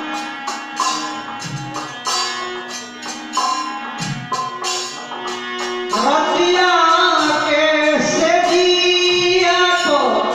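A Bhojpuri purvi folk song. At first it is an instrumental passage of steady held notes over light percussion, and a singing voice comes in about six seconds in.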